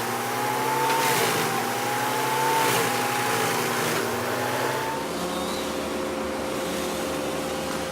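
A large engine running steadily with a wavering whine. About five seconds in, the whine drops to a steady lower pitch, as if the machine has changed speed.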